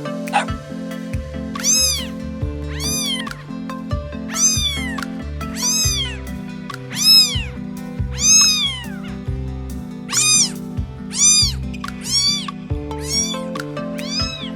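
A cat meowing over and over, about a dozen short meows roughly a second apart, each rising and then falling in pitch, over background music.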